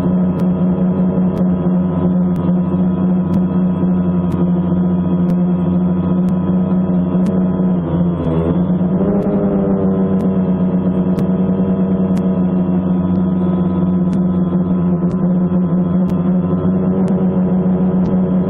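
Ambient drone music: a sustained low droning tone with many overtones, its pitch bending briefly down and back up about eight seconds in.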